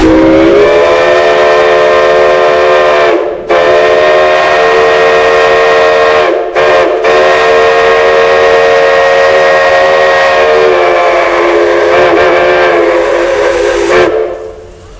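Multi-chime steam whistle blowing a long, loud chord. It slides up into pitch as the steam comes on, is cut off briefly about three seconds in and twice more a few seconds later, then holds until it stops near the end.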